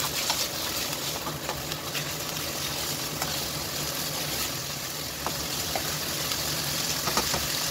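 Raw chicken pieces sizzling steadily in hot oil in a nonstick wok, stirred with a plastic spatula that gives a few light taps and scrapes against the pan.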